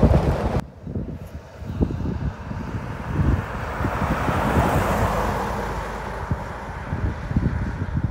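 Wind rushing over the microphone in the open 1962 Rolls-Royce Silver Cloud II convertible until a sudden cut about half a second in. Then the car drives past: its tyre and 6.2-litre V8 noise swells to a peak about five seconds in and fades as it pulls away, with wind gusting on the microphone throughout.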